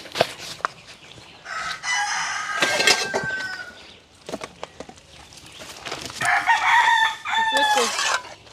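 A rooster crowing twice, each crow about two seconds long and slowly falling in pitch at the end, with a few light knocks just before the first.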